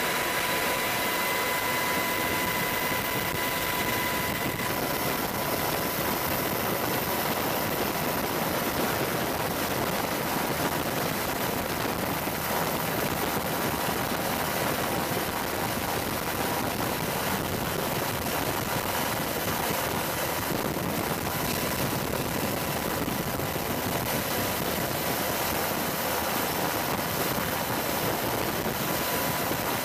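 Helicopter in flight heard from on board: steady engine and rotor noise, with a high whine that fades out about four seconds in.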